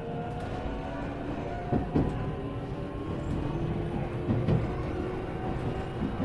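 Interior running noise of an Iyotetsu 3000-series electric train car: a low rumble with a traction motor and gear whine slowly rising in pitch as the train gathers speed, and a few wheel knocks over rail joints.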